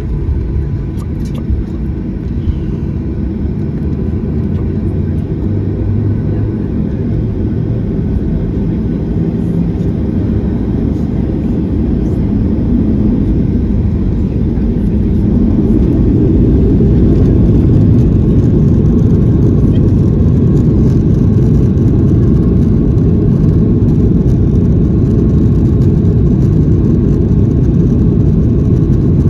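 Boeing 737-800's CFM56 jet engines and airframe rumble heard from inside the cabin, growing louder over the first half and then holding steady.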